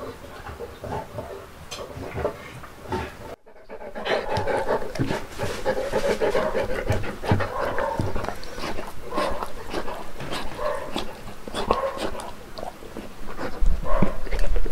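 Saint Bernard panting while eating off a plate, with wet chewing and licking clicks; the sound drops out briefly about three and a half seconds in.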